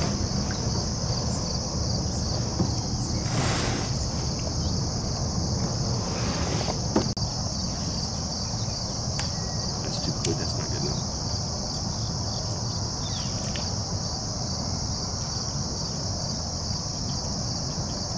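Steady chorus of insects trilling in a continuous high-pitched band, with a low steady rumble underneath and a couple of brief soft swishes a few seconds in.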